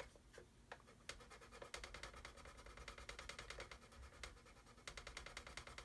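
Faint, rapid back-and-forth strokes of a sanding stick rubbing on the plastic hull of a scale model kit, smoothing the bow. The strokes pause for about a second near the start, then run on evenly.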